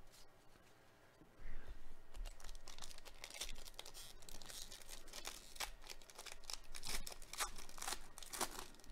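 Foil wrapper of a Panini Contenders baseball card pack being torn open and crinkled by hand. The crackling starts about a second and a half in and comes as rapid sharp crackles for the rest of the time.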